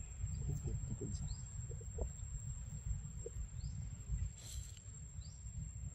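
Outdoor forest ambience: a steady low rumble on the microphone, with a few faint, short rising chirps and a brief rustle about halfway through.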